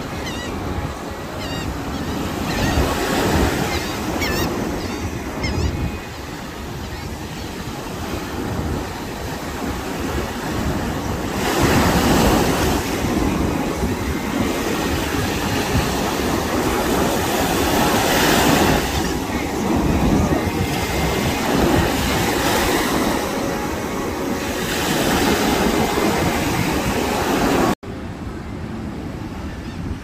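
Gulf of Mexico surf: small waves breaking and washing up on a sandy beach, rising and falling in surges every few seconds. Near the end the sound cuts off abruptly and goes on as quieter surf.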